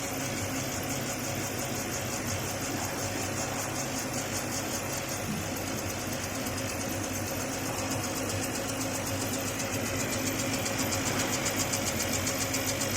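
Small 6040 CO2 laser engraving and cutting machine running: a steady mechanical hum with a fast, fine high-pitched chatter, growing a little louder in the second half.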